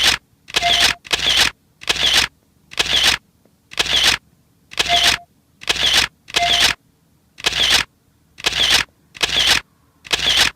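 Dubbed-in comic sound effect for a cat kneading a cushion: a short noisy swish repeated about once a second, one for each push of the paws. A few of the swishes carry a brief beep.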